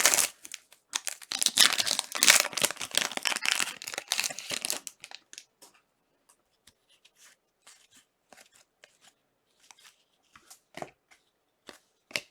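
A trading-card pack wrapper being torn open and crinkled for the first few seconds, then faint scattered clicks of cards being handled and flipped through one at a time.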